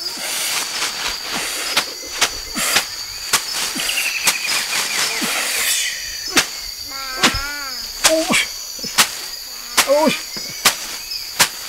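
Night insects, crickets, chirring steadily in a high, even band, with sharp knocks every half second or so and a few short calls that rise and fall in pitch in the second half.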